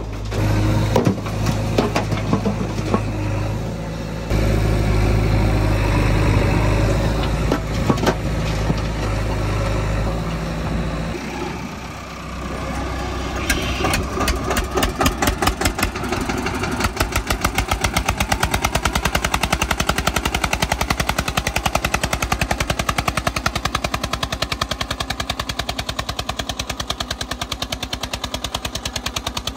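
A backhoe loader's diesel engine runs steadily with a low drone for the first eleven seconds or so, then drops away. An Eicher tractor's diesel engine takes over, chugging with a fast, even knock as it tows the mud-loaded trolley.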